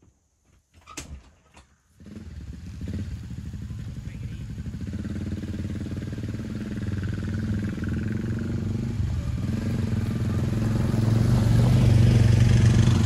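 ATV engines running as the four-wheelers drive up the trail toward the camera, steady and getting louder as they come close near the end. A few light knocks come just before the engines start to be heard.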